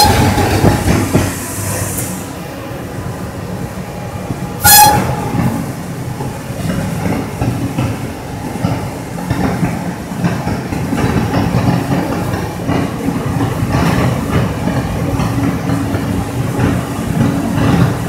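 Steady rumble and rattle inside the cab of a WAG-7 electric locomotive running along the track. Two short, loud, high-pitched toots cut through it, one right at the start and one about five seconds in.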